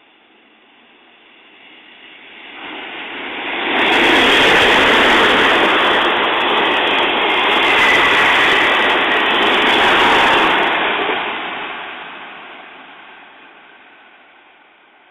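JR Kyushu ED76 electric locomotive hauling a 14-series sleeper train through a station without stopping. The sound builds over about two seconds, stays loud for about seven, then fades away as the train leaves.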